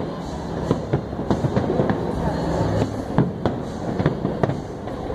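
Aerial fireworks bursting in a rapid, continuous barrage: many sharp bangs and crackles a second over a steady rumble of explosions.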